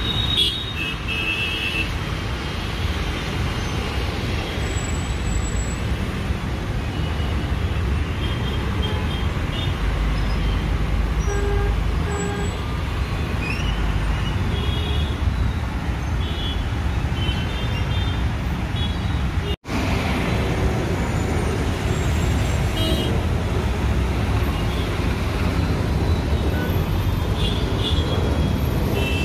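Dense road traffic in a slow-moving jam: a steady rumble of engines and tyres, with frequent short vehicle horn toots. The sound cuts out for an instant about twenty seconds in.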